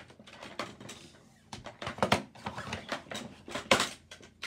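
Hard plastic clicking and clattering from an orange plastic Hungry Hippos hippo toy being handled: an irregular run of sharp clicks and knocks, the loudest a little before the end.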